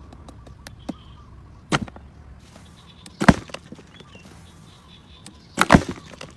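Three loud, sharp knocks, spaced about one and a half to two and a half seconds apart, with lighter clicks and taps between them.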